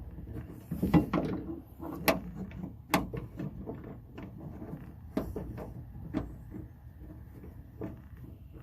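Irregular clicks and knocks of door-latch parts being handled and clipped into place inside a car door during a lock actuator replacement. The sharpest come about one, two and three seconds in.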